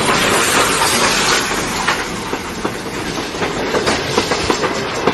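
Train running on rails: a steady rattling hiss with many sharp, irregular wheel clicks.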